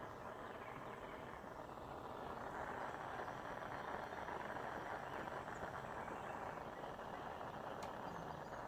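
Soldering torch flame hissing steadily while it heats the silver pieces, before the solder has run. It gets a little louder about two and a half seconds in, with a faint click near the end.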